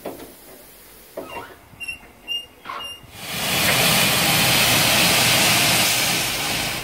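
Narrow-gauge steam locomotive No. 7 venting steam from under the cab: a loud, even hiss starts about three seconds in and fades just before the end. Before it come three short, high squeaks.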